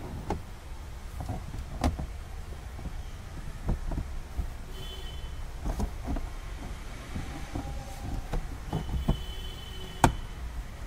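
Plastic interior trim cover being handled and pressed back into place on a car's rear side panel: scattered clicks and knocks of plastic on plastic, the sharpest about two seconds in and near the end.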